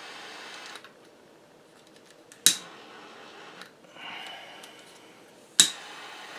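Small handheld jet-flame torch: its steady flame hiss cuts off just under a second in, then two sharp clicks of its igniter, the second relighting the hissing flame.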